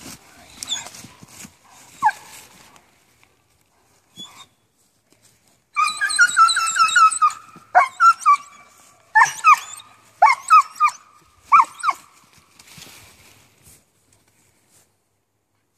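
German Shepherd puppy whining eagerly while held back from its ball: a run of high, wavering whines about six seconds in, then several short falling whimpers.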